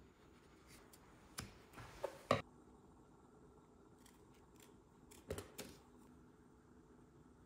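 Scissors snipping through black steering-wheel covering material in a few short cuts: one about a second in, a louder cluster around two seconds, and two more past the five-second mark.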